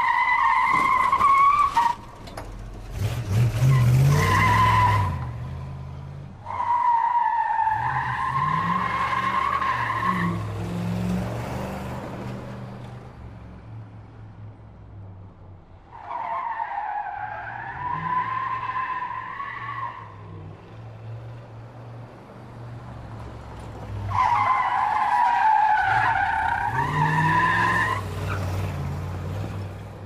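American muscle car drifting: its tyres squeal in four long skids, each a sustained wavering shriek. The engine runs underneath throughout and surges loudly between the first two skids.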